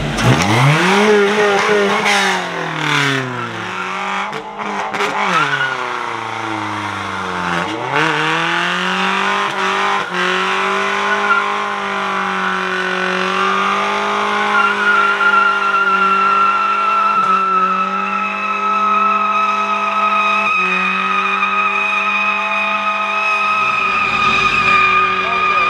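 A vehicle doing a burnout: the engine revs up and down several times, then is held at high, steady revs while the tires squeal in a long, steady screech. The engine drops off near the end.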